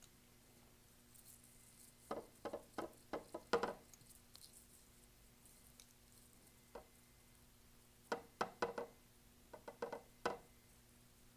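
Paintbrush dabbing acrylic paint onto a canvas: soft quick taps in short clusters, with a pause of several seconds in the middle.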